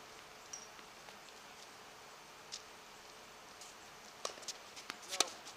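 Tennis ball and racket impacts: a few faint scattered taps, then about four seconds in a racket strike on a serve from the far end, and about a second later the loudest sharp pock of the ball being hit back.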